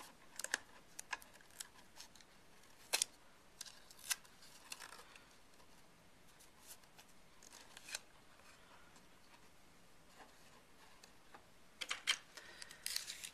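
Faint, scattered clicks and short rustles of clear tape and cardstock being handled and pressed onto thin balsa sticks, with a busier patch of rustling near the end.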